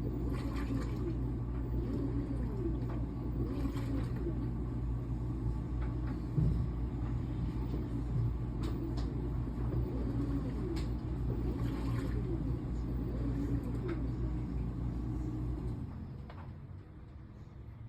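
LG WT16WV6 16 kg washing machine in its wash cycle: the motor runs with a steady low hum while water and clothes churn in the drum. The agitation stops about two seconds before the end.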